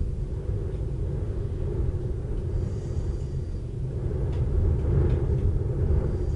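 Low, continuous rumble of rolling thunder, swelling a little louder about two-thirds of the way through.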